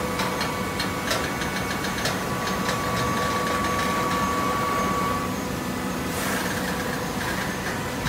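Hydraulic horizontal auto-tie baler running with a steady mechanical hum and whine. There are rapid clicks over the first few seconds and a brief hissing rush about six seconds in.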